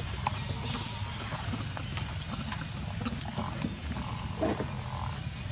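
Monkeys giving a few short calls in the second half, over a steady low rumble and scattered small clicks.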